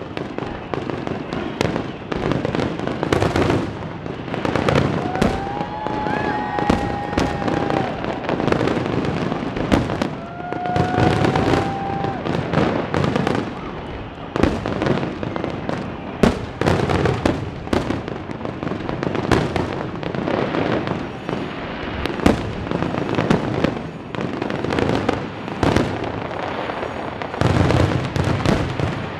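Aerial fireworks display: a dense, continuous barrage of shell bursts and bangs, one after another with no break.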